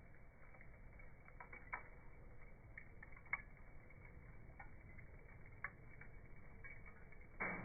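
Faint, sparse crackles and pops from a burning charcoal and wood fire, irregular and a few per second at most, with a louder pop near the end.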